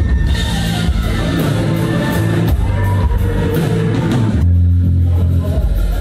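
Rock band playing live through the venue's PA in a large room: drum kit with steady cymbal strokes over bass and guitar. About four and a half seconds in the cymbals stop and a low bass note rings on.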